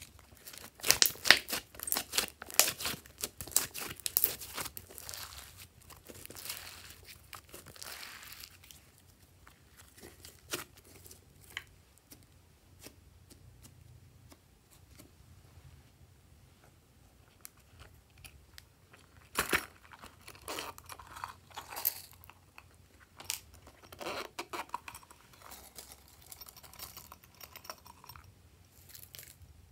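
Glossy slime squeezed and kneaded by hand, giving sticky crackling and popping, densest in the first few seconds. Later come scattered clicks and a second run of crackles and crinkles as hands work over the slime and handle plastic glitter sequins.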